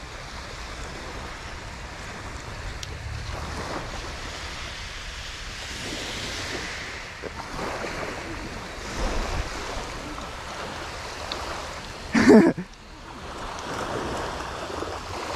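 Small waves breaking and washing up a gravel beach, the surf rising and falling in slow swells, with wind on the microphone. About twelve seconds in there is a brief loud voice-like sound.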